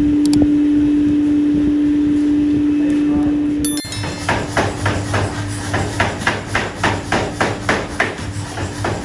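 A steady machine hum for the first few seconds, then, after a sudden cut, a rapid run of hammer blows on metal, about three a second, as in forging a metal rod.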